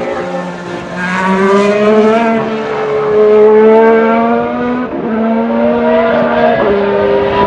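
A 2016 Formula 1 car's 1.6-litre V6 turbo hybrid engine accelerating, its pitch climbing and then dropping at quick upshifts about five seconds in and again near the end.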